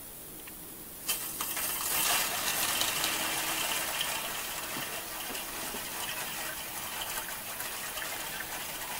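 Homemade fire-extinguisher engine pre-oiler's squeeze valve opening about a second in, then a steady rushing hiss as 20 psi air pressure forces oil out through the hose into the engine, the oil system being pressurized before start-up.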